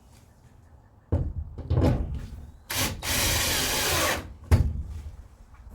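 Handling noise of wood against something hard: two thumps, a steady scraping rub lasting about a second and a half, then a sharp knock.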